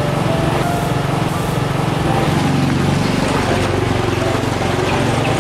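Yamaha motor scooter's engine running steadily, a constant low hum.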